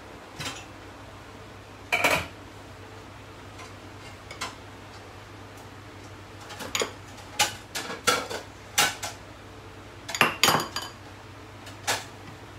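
Plates and bowls clattering and knocking against each other and the wire dish-drying rack as they are taken out one by one, in scattered knocks with quicker runs in the second half. A low steady hum sits underneath.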